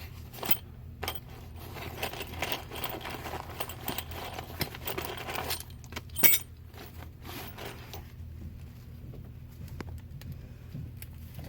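Small metal sheetrock screws clinking and rattling as spare screws are sorted through by hand, with a sharp click about six seconds in. After that only a few scattered ticks are heard.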